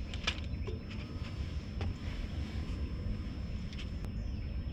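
Steady low wind rumble buffeting the microphone, with a faint steady high whine above it and a couple of light clicks.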